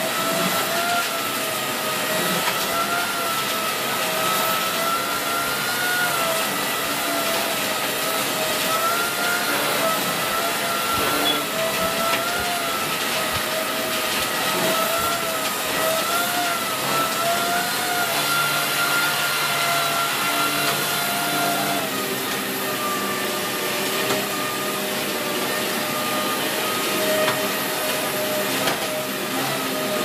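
Dyson Big Ball Animal cylinder vacuum cleaner running on carpet with its carpet head, a steady rushing hiss with a high motor whine that wavers slightly and drops a little in pitch about two-thirds of the way through.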